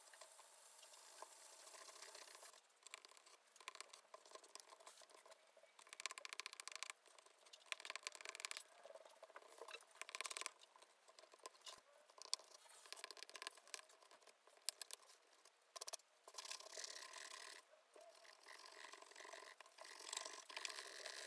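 Faint scratching and picking of fingernails on vinyl sticker remnants stuck to a Samsung laptop's metal lid, in uneven spells with small clicks and the crackle of sticker film tearing away. Near the end comes a soft rubbing as a wet tissue wipes the lid.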